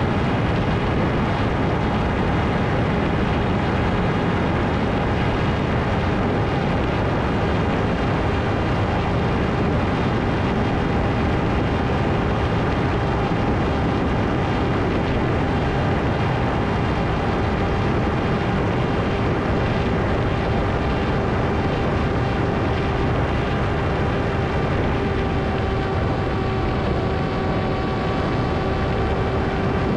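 Electric motor and propeller of a Ritewing Hardcore 38 FPV flying wing running steadily in flight: a constant whine over rushing air noise, its pitch sagging slightly near the end.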